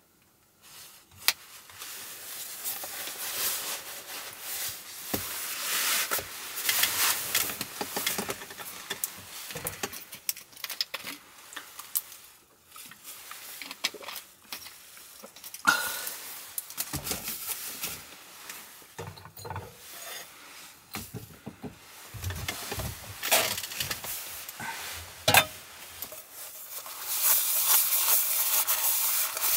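A string of small clicks and rustles from things being handled at close range. Near the end comes a denser scratchy rubbing: a sponge scrubbing dishes over a washing basin.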